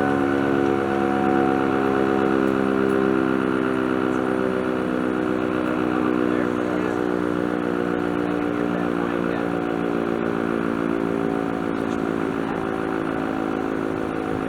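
ASC OM-117 (ACA Banshee) outdoor warning siren sounding during its test: a loud, steady chord of tones whose higher note fades in the first couple of seconds, while the rest sinks slowly in pitch.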